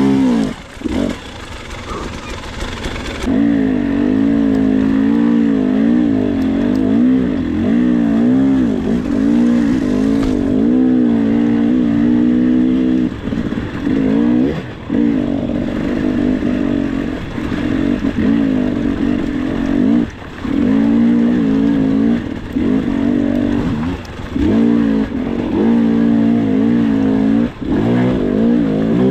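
Dirt bike engine under load, its pitch rising and falling as the throttle is worked on and off, with a few short drops where the throttle is shut.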